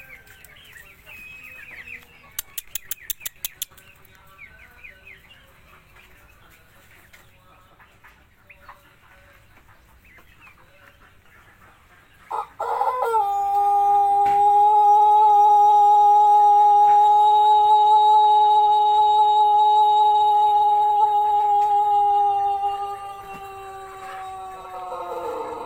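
Pelung rooster crowing one long crow of about thirteen seconds, starting about halfway through: a steady held tone that fades and sags in pitch at the end. The crow is fairly clean, clear and long after the bird's CRD hoarseness, but the usual bitu ending of a Pelung crow does not appear. Before it come faint clucking calls and a quick run of about ten clicks a couple of seconds in.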